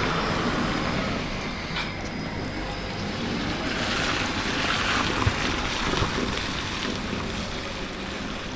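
Steady traffic noise of vehicles at a railway level crossing, swelling as a vehicle passes about halfway through, with a couple of light thumps.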